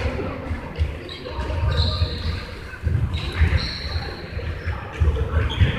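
Futsal ball thudding and players' feet on a wooden sports-hall floor during play, with short high shoe squeaks, in a large hall.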